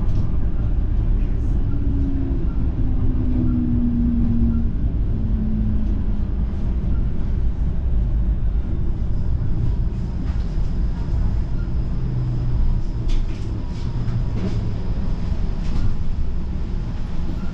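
TTC streetcar running along its rails, heard on board: a steady low rumble, with a wavering motor whine in the first five seconds and a few sharp clicks and clacks from the wheels and track late on.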